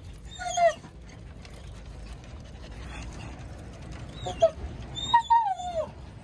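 Small dogs whining in short whimpers that fall in pitch: one just after the start, then several more near the end.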